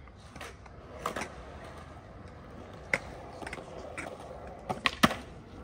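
Skateboard wheels rolling over concrete with a low steady rumble, broken by scattered sharp clicks and knocks from the board. The loudest knocks come in a quick cluster near the end.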